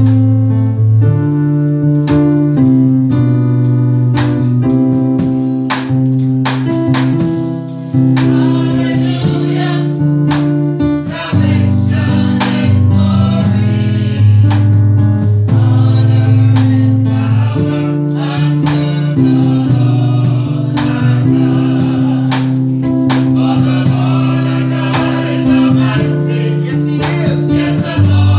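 Gospel choir singing with keyboard accompaniment: sustained keyboard chords over a heavy bass, with the voices coming in strongly about eight seconds in.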